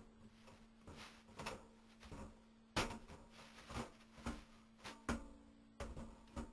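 Irregular, faint knocks and clunks of stovepipe parts being handled and fitted, with one sharper clunk about three seconds in, over a faint steady hum.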